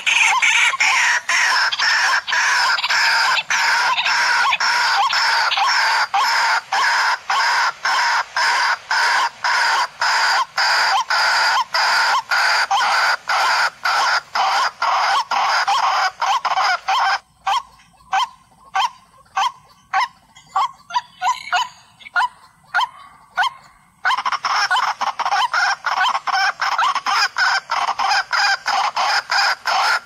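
White-breasted waterhen (kurowak) call, a rapid, evenly repeated call of about two to three notes a second, played as a lure to draw the birds in. From a little past halfway the calls thin out and fade for several seconds, then return at full strength.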